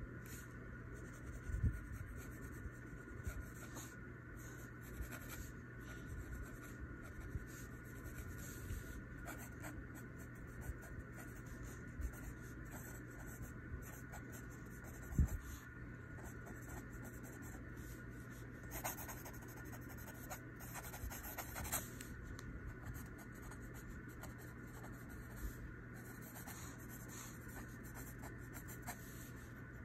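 Pencil scratching on paper in short strokes while lettering and a signature are written, with a quick run of strokes about two-thirds of the way through. A soft thump about halfway through is the loudest moment, over a faint steady hum.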